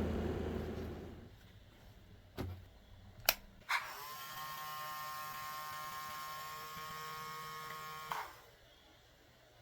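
A small battery-powered motor whirring down and stopping, then a few sharp switch-like clicks. A steady, high whine from a small electric motor then runs for about four seconds and cuts off with a click.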